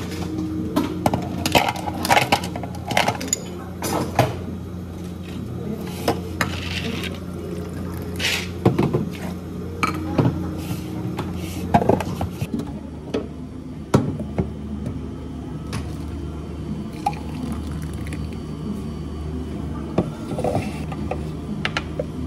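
Kitchen clatter of clinks and knocks against a plastic blender jar as grapes and ice are loaded into it, thinning out after about twelve seconds, with juice poured into a glass near the end.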